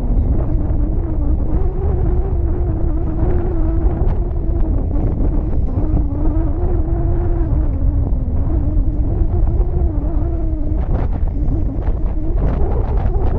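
Outboard motor of a small boat running under way, its engine note wavering slightly in pitch, with heavy wind buffeting on the microphone.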